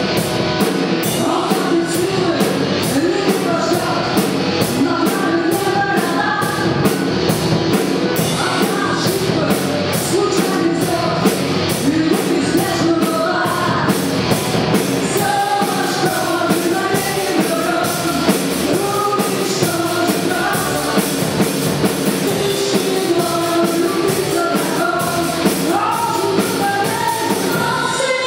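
A small rock band playing live: electric guitars and a drum kit under a lead singer singing into a microphone. A steady cymbal beat runs through the first half and then drops out.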